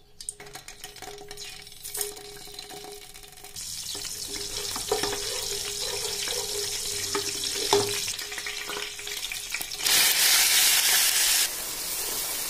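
Hot oil sizzling in a pan as whole spices (cumin seeds and bay leaves) fry and are stirred with a wooden spoon. The sizzling starts a few seconds in, then a louder burst of sizzling comes about ten seconds in as chopped onions go into the hot oil.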